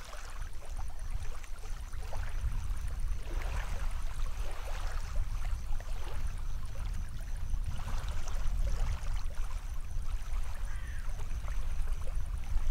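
Steady low rumble of wind and lake water at the shore, with faint scattered scrapes and clicks as a carp is handled and unhooked on the gravel.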